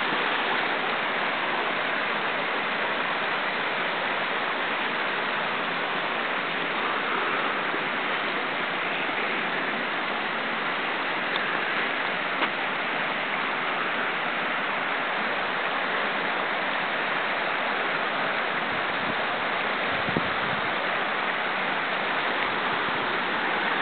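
Steady rushing of running water, an even hiss that holds unchanged throughout.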